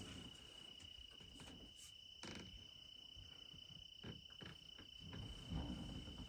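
Faint steady insect drone, a single high-pitched tone that never lets up, with a soft tick about two seconds in and muffled low rustling near the end.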